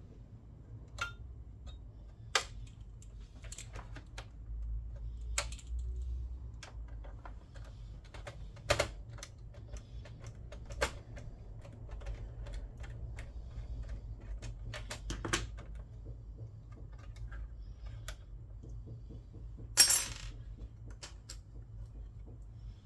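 Irregular light clicks and clinks of screws, a screwdriver and metal console parts being handled while a PlayStation 3 is taken apart, with a sharper clatter near the end.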